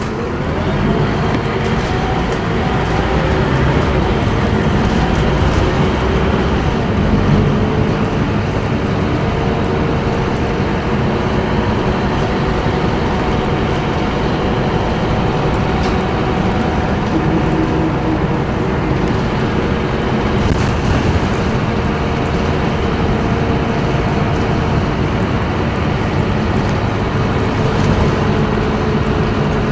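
Scania K230UB bus's rear-mounted diesel engine and road noise heard from inside the passenger cabin as the bus drives along, the engine tones rising in pitch as it speeds up during the first few seconds, then running steadily.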